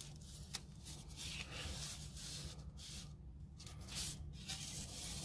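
Faint rustling and small clicks of hands moving over a workbench mat and picking up small airsoft pistol parts, over a steady low hum.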